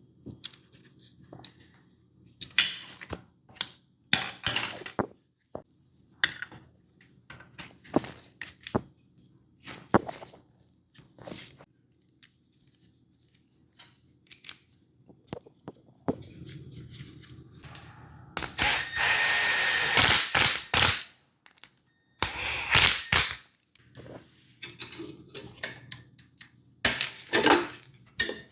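Irregular clicks and knocks of hand tools and metal parts being handled and set down, with a steady hiss of about two and a half seconds two-thirds of the way through.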